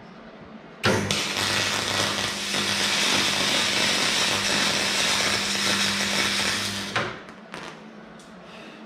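Electric arc welding on an aluminium frame: a steady crackling hiss over a low hum. It starts about a second in and cuts off after about six seconds, followed by a few light clicks.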